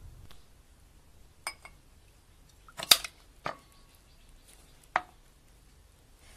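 Kitchen utensils clinking and knocking against a glass bowl and drinking glass: four separate sharp clinks, the loudest a quick double knock about three seconds in, and one with a brief glassy ring.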